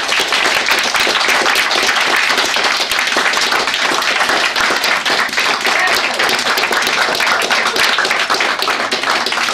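Small audience applauding: many hands clapping densely and steadily, breaking out suddenly.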